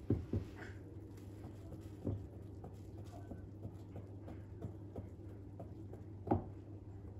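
Fast whisk strokes against a mixing bowl of cake batter stop right at the start. Then come a faint steady low hum and a few light utensil knocks, one about two seconds in and a sharper one about six seconds in.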